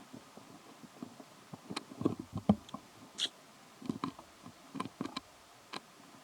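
A young monkey eating steamed rice: irregular soft smacks and clicks of chewing and mouthing food, coming in short clusters.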